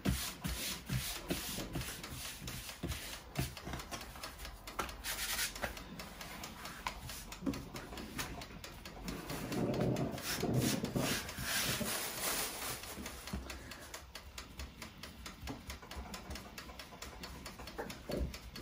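Lahmacun dough being worked by hand: soft rubbing and scraping with small clicks, louder for a few seconds around the middle.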